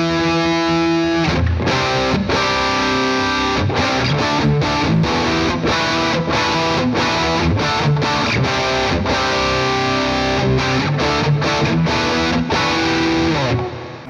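Gibson Les Paul Standard played on the bridge pickup through a Victory Sheriff 25 valve amp's overdriven Hot Rod channel. A held distorted chord, then a riff of short chopped chords with brief stops between them, ending on a held chord that cuts off just before the end.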